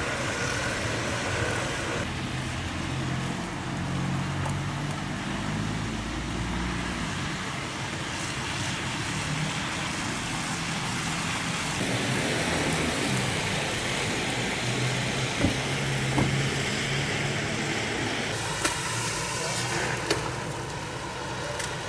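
Street traffic noise: a steady wash of passing cars with a low engine hum, broken by a couple of brief sharp knocks about two-thirds of the way through.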